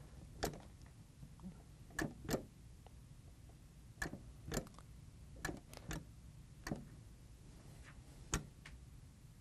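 Selection buttons on a Dixie Narco Pepsi HVV vending machine clicking as they are pressed one after another, about nine sharp clicks at uneven intervals, some in quick pairs, while a counter code is keyed in.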